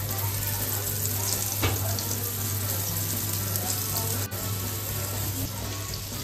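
Rava-coated surmai (kingfish) slices shallow-frying in oil on a cast-iron tawa: a steady sizzle over a low hum, with a sharp click about four seconds in.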